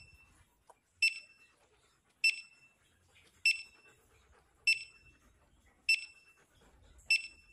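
Metal detector beeping: short, high, sharp beeps repeating evenly about once every 1.2 seconds, six times.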